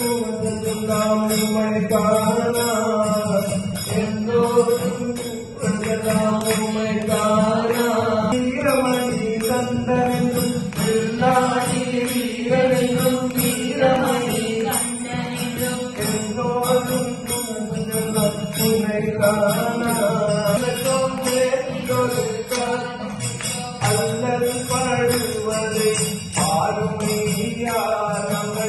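Hindu devotional bhajan: a man sings the melody into a microphone over a steady harmonium drone, with a regular jingling beat keeping time.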